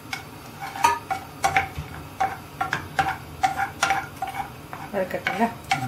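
Wooden spoon stirring cashews roasting in ghee in a ceramic-coated frying pan: irregular knocks and scrapes against the pan, about two or three a second, each with a short ring from the pan.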